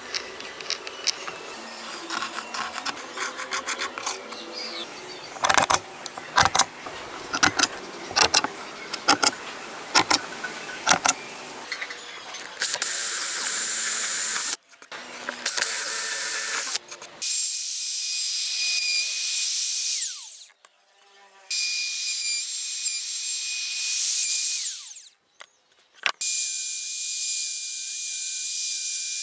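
Small taps and scrapes of a pencil compass marking a wooden board, then a power drill boring a hole in the wood in two short, loud runs. After that a compact trim router cuts into the board in three runs of a steady high whine, with short gaps between them.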